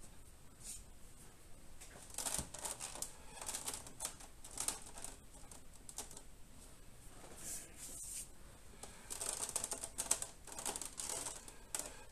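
Hands handling small hard objects: a quick run of light clicks, taps and rustles, coming in two flurries about two and nine seconds in.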